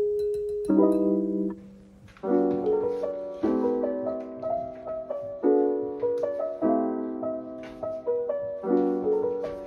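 Background piano music: chords struck about once a second, with a short lull about two seconds in.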